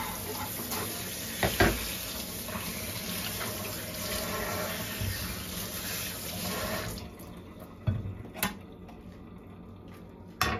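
Kitchen faucet running into a stainless steel sink, the stream splashing over bell pepper halves being rinsed; the water shuts off about seven seconds in. A few sharp knocks sound in the sink, one near the start and three after the water stops.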